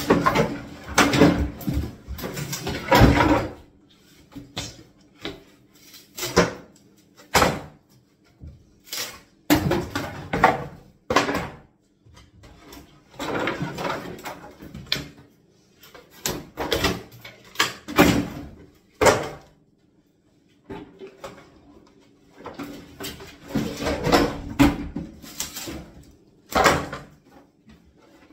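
Kitchen cabinet units being knocked apart by hand and flat-packed: a long run of irregular bangs, knocks and creaking, clattering chipboard panels, with short pauses between.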